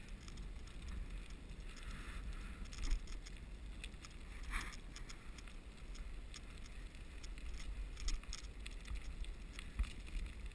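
Wheels rolling steadily along an asphalt road, with a low wind rumble on the microphone and scattered light clicks and rattles.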